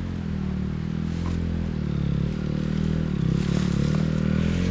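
Enduro dirt bike engines idling while the bikes stand stopped, a steady low engine drone that grows slightly louder about halfway through.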